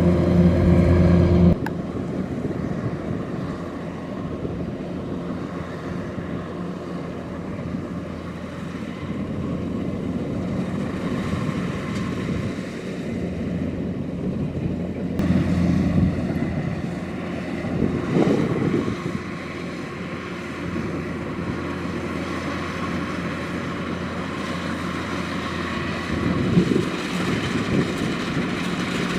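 Kubota DC-105X combine harvester running steadily. A loud, even engine drone at the start drops suddenly about a second and a half in to a lower, rougher machine noise that runs on with a few brief swells.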